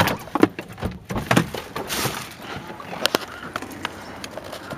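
Camera handling noise: rustling and scattered sharp knocks as a handheld camera is carried on foot and brushes against cloth.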